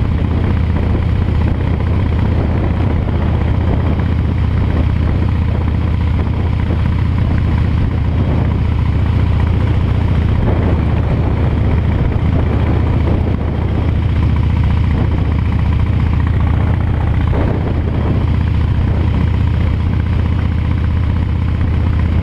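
Harley-Davidson motorcycle's V-twin engine running steadily while riding along a street.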